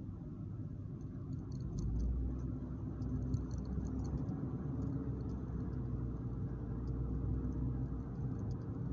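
Low rumble of a car's engine and tyres heard from inside the cabin while driving, a little louder from about two seconds in, with faint scattered clicks.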